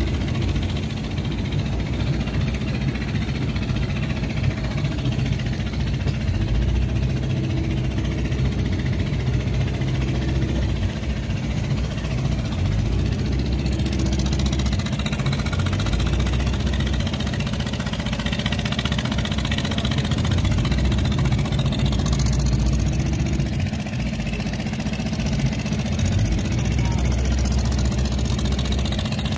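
Fishing boat's inboard engine running steadily at low speed, a deep continuous chug. About halfway through, a hiss of water and wind joins it.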